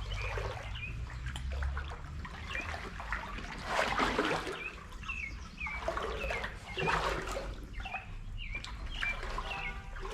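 Footsteps wading and splashing through creek water, with a few louder sloshes about four, six and seven seconds in. Over them a bird chirps repeatedly in short calls.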